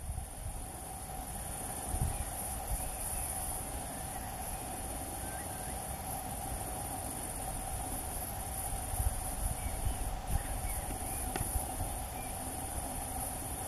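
Steady high-pitched chorus of insects singing in a summer hay meadow, unbroken throughout, over a low rumble on the microphone.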